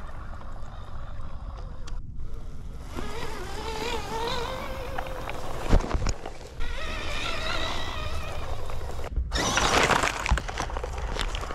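Remote-control monster truck's electric motor whining as it tows a loaded trailer over grass, the pitch wavering and rising as it pulls. A short thump partway through and a louder rush of noise near the end.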